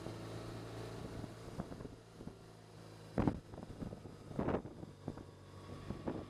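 BMW touring motorcycle's engine running steadily at cruising speed, with wind rushing over the helmet-mounted microphone. Two short, louder bursts come a little after three seconds and about four and a half seconds in.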